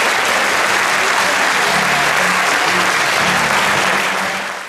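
Theatre audience applauding steadily, with music playing quietly underneath from about halfway in; it all fades out at the very end.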